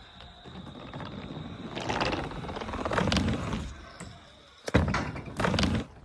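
Stunt scooter wheels rolling on a wooden mega ramp, a rumble that swells twice. A sharp knock comes about three-quarters of the way in, then a heavy clatter near the end as the scooter hits the ramp.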